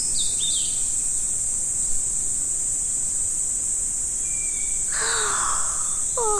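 A steady, high-pitched drone of insects, with short bird chirps near the start. About five seconds in there is a soft rush of noise, followed by a few falling bird calls near the end.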